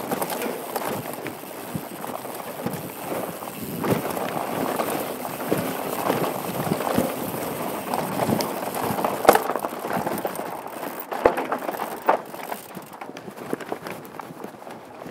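Downhill mountain bike rolling fast over a rocky dirt trail, heard from a helmet camera: a steady rattle of tyres and bike with frequent clunks from rocks. The sharpest knock comes about nine seconds in, and it is a little quieter near the end.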